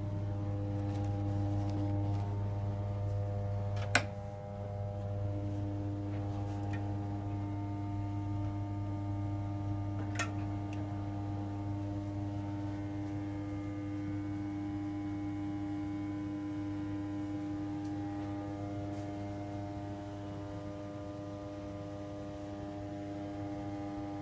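GeneralAire humidifier running with a steady humming drone made of several held tones. It is broken by a sharp click about four seconds in and a fainter one about ten seconds in.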